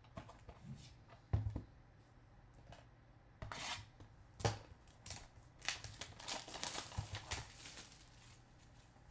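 Cellophane wrap crinkling and tearing as a Bowman Chrome hobby box of baseball cards is unwrapped and handled, in irregular rustles from about three and a half seconds on. A couple of light knocks about a second in, from cards and cardboard being set down.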